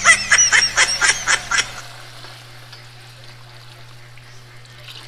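Water glugging out of the narrow neck of a vacuum flask into a pot of sautéed chicken: a quick run of gurgling glugs for the first couple of seconds, then a quieter, steady pour.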